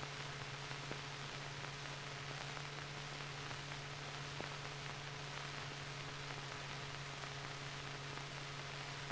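Steady hiss with a low hum underneath: the background noise of an old film soundtrack, with a couple of faint clicks.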